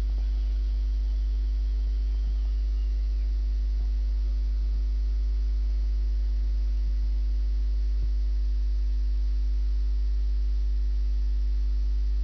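Steady electrical mains hum: a strong, unchanging low drone with a few faint steady higher tones above it and no other distinct sound.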